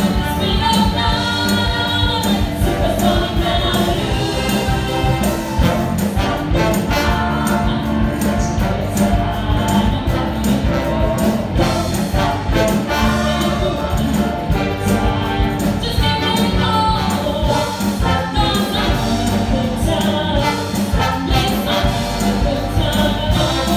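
A group of women singing together into microphones, backed by a live rock band with horns, electric guitars and drums, at steady full volume.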